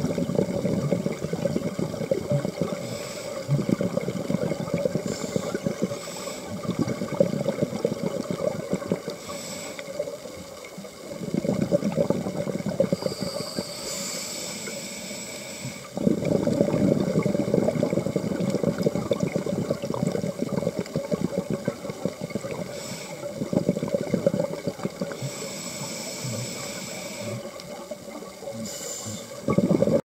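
Scuba diver breathing through a regulator underwater: short hissing inhalations alternate with long, noisy bubbling exhalations, which come and go every few seconds.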